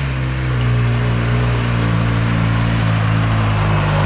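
An engine running steadily at idle, its pitch holding even with a slight dip near the end.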